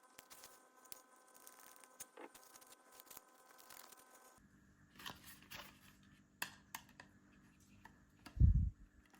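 Small clicks and scrapes of a hand screwdriver driving screws to fasten a strap to a wooden box, with one loud, low thump near the end.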